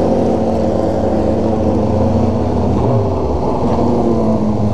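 Motorcycle engine running at fairly steady revs while riding, heard from on board the bike, with other motorcycles in the group nearby.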